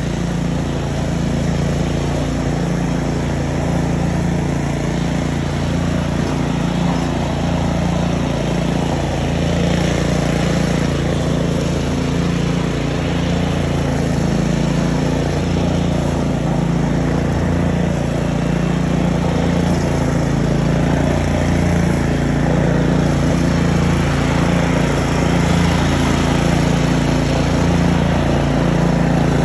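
DR Field & Brush Mower's engine running steadily under load.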